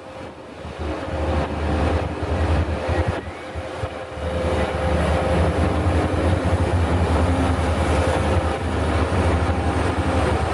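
Heavy logging machine's engine running loud and steady, building up over the first couple of seconds, with a brief dip around four seconds in.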